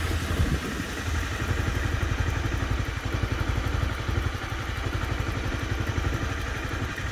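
Motorcycle engine idling while the bike stands still, a fast, even low throb.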